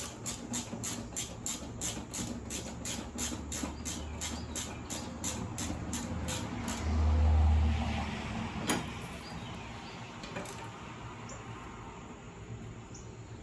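A ratchet wrench clicking steadily, about four clicks a second for several seconds, then stopping. A brief low rumble swells around seven seconds in, followed by a single sharp click.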